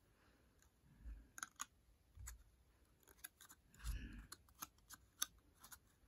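Faint handling noise: a few small, sparse clicks and soft rubs and thumps as fingers turn and hold a steel-tip dart.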